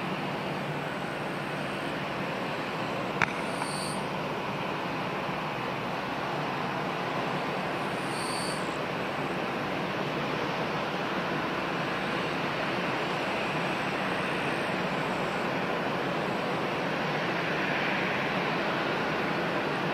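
Airbus A320 jet engines running at taxi idle as the airliner taxis, a steady rushing hum that grows slightly louder near the end. A single sharp click about three seconds in.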